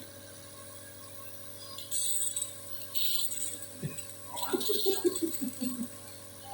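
Two short hissing bursts, then a short whimpering, wavering cry from about four and a half seconds in, over a faint steady hum.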